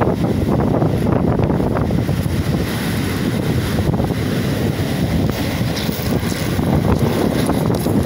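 Strong wind buffeting the microphone over the steady rush of heavy surf breaking and washing up a pebble beach.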